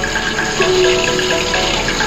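Background music with a melody of held notes, over a steady sizzle of garlic cloves frying in oil in a wok.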